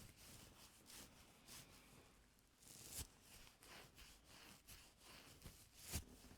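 Faint scraping and rustling of ear-cleaning tools working close to the microphone in an ear canal, with sharper scratching strokes about three seconds in and near the end.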